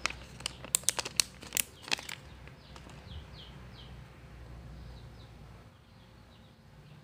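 Small clear plastic zip bag crinkling as it is handled and opened, a quick run of sharp crackles over the first two seconds. Then a small bird chirping faintly, short quick chirps falling in pitch, in runs of about three.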